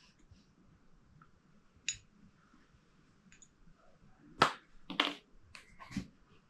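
Small parts and tools being handled on a workbench: a few sharp, separate clicks and knocks, the loudest about halfway through and a quick run of them near the end.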